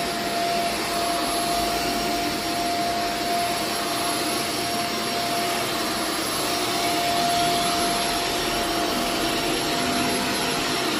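A vacuum-type cleaning machine, such as a carpet extractor or vacuum, runs steadily over an area rug with a constant whine, cleaning up cat vomit or urine.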